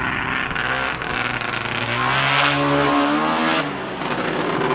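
Snowmobile engine revving hard as the sled accelerates, its pitch climbing, dropping off briefly a little over three and a half seconds in, then climbing again.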